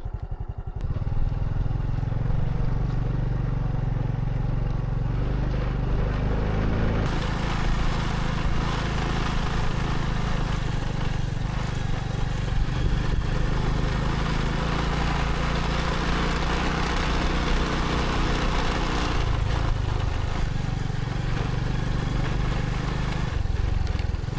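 Motorcycle engine running steadily, with a rush of noise that grows louder about seven seconds in.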